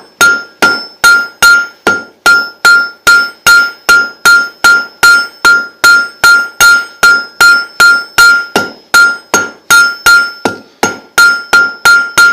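Blacksmith's hammer striking hot steel bar on an anvil in a steady rhythm, about two and a half blows a second, each blow followed by a short, clear anvil ring. The blows are drawing a taper to form the point of an S hook.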